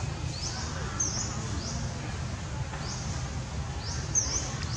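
Short, high-pitched bird chirps repeating every half second to a second over a steady low rumble.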